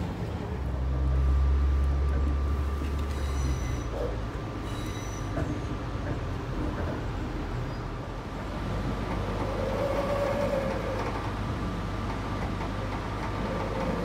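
Passenger train running, heard from inside the carriage: a steady rumble with a thin, steady whine, and a deep hum in the first few seconds.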